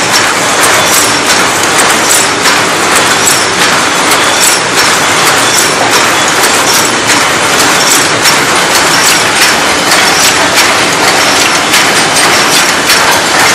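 Paper cup forming machine running at speed: a loud, steady clatter of rapid metallic clicks and knocks from its turret and forming mechanism.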